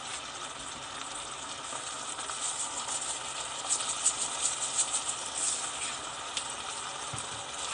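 Chopped water leaf and pepper cooking in a stainless steel pot, sizzling steadily with light crackles now and then.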